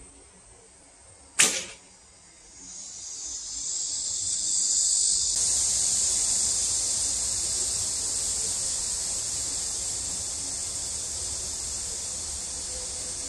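Korean horn bow (gakgung) loosing an arrow: the bowstring releases with one sharp crack about a second and a half in. Then a high insect drone swells in over a couple of seconds and holds steady.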